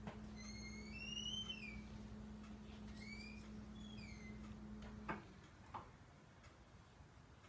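Several high squeaks that glide up and down in pitch, the first one long and the later ones short, as the flat painting tool is dragged across the glossy paper. A steady low hum cuts off with a click about five seconds in.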